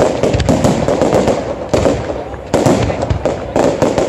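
Aerial firework shells bursting in rapid succession, many sharp reports a second, with heavier bursts at the start and then about every second.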